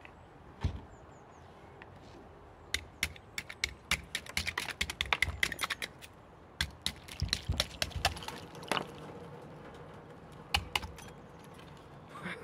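Kitchen knife tip chipping and picking at a solid ice balloon: a run of sharp, quick taps and cracks, thickest in the middle of the stretch with a few stray ones later, as the ice around a frozen chili pepper is chipped away.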